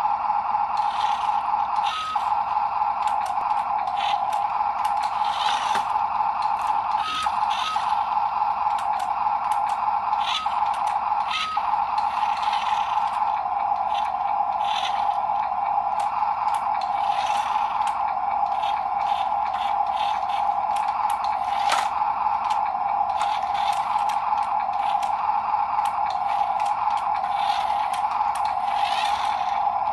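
Small electric motor and plastic gearbox of a radio-controlled toy dump truck whining steadily at one pitch, with scattered clicks and rattles from the gears.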